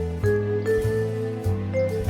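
Music: a melody of short pitched notes, changing every quarter to half second, over sustained bass notes.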